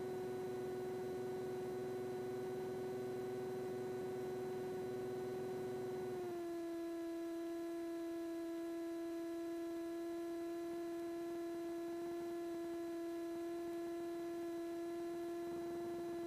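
Steady electrical hum with several overtones on a light aircraft's intercom audio, stepping slightly down in pitch about six seconds in.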